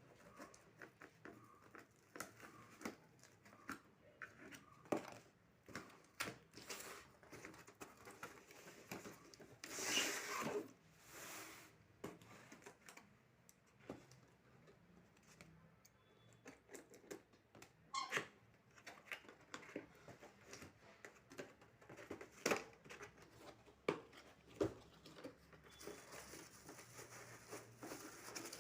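Packaging being unpacked by hand: rustling and crinkling wrapping, a tear about ten seconds in, and scattered light clicks and knocks as the parts are handled.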